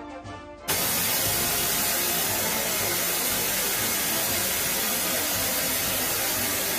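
Loud, steady rushing hiss of airflow and jet noise recorded aboard an aircraft in flight. It cuts in suddenly after a moment of background music and eases off slightly near the end.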